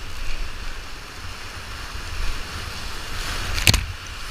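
Whitewater rapids rushing loudly around a raft, with wind and water buffeting the camera microphone. A single sharp thump lands near the end.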